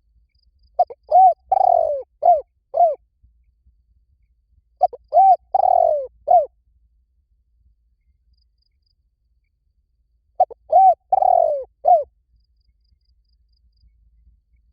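Spotted dove cooing: three phrases of about five low, hooting coos each, several seconds apart.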